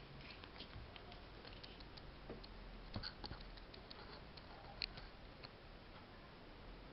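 Faint handling noise of a plush toy: soft rustling with scattered small clicks, a couple of them a little louder, about three and five seconds in.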